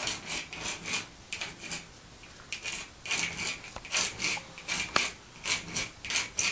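Scratchy strokes of a drawing tool sketching lines on a wall, irregular, roughly two a second, some short and some drawn out longer.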